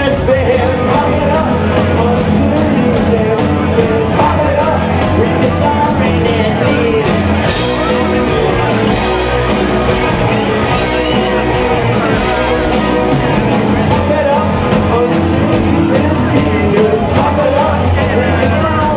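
A rock band playing live: singing over a steady, fast drumbeat.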